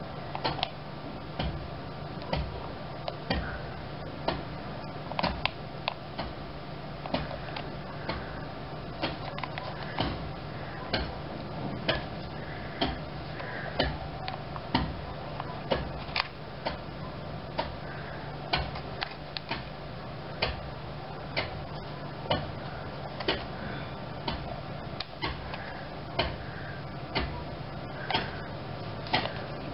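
Clock ticking steadily about once a second, with a steady low hum under it.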